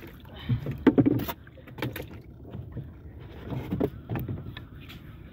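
Water sloshing against the hull of a small wooden outrigger boat, with scattered irregular knocks.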